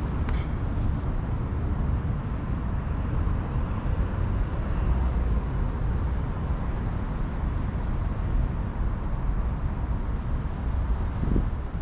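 Low, steady rumble of wind buffeting the camera microphone outdoors.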